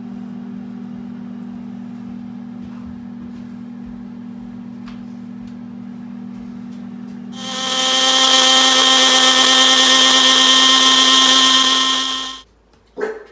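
Electric blender grinding ginger, garlic, chillies and herbs into a green paste: a loud, steady high whine for about five seconds in the second half that cuts off suddenly, followed by a short knock. Before it there is a steady low hum.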